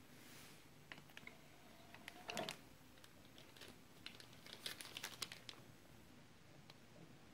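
Marantz CD player loading a disc, heard faintly. A brief motor whine ends in a clunk about two seconds in, and a run of small clicks follows around five seconds in as the mechanism reads the disc.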